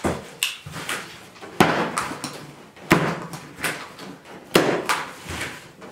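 Sharp knocks and snaps on a large cardboard shipping box while its plastic strapping bands are cut and pulled loose. Four loud ones come about a second and a half apart, with lighter knocks between.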